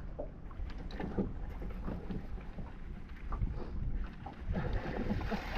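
Wind rumbling on the microphone and water slapping against a bass boat's hull, with scattered light clicks and knocks from the deck.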